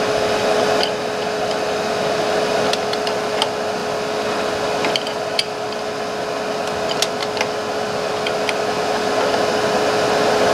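Steady machine hum with one constant mid-pitched tone, with scattered light metallic clicks of two wrenches working the collet nut loose on a CNC router spindle.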